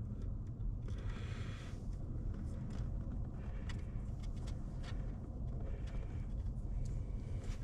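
Steady low rumble of wind on the microphone, with light clicks and a short scrape about a second in from hands stripping the insulation off electrical wire without wire strippers.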